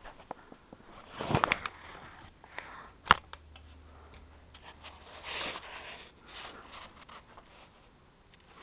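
Handling and rustling noises from a handheld camera being moved around a small room, with two short hissy bursts and one sharp click about three seconds in, the loudest sound.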